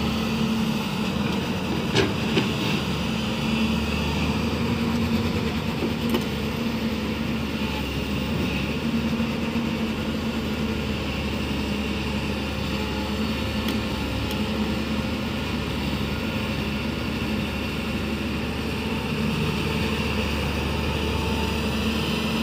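Diesel engine of a Hyundai 215LC crawler excavator running steadily under load as it digs, swings and loads soil into a dump truck, with a few short knocks about two seconds in and again near six seconds.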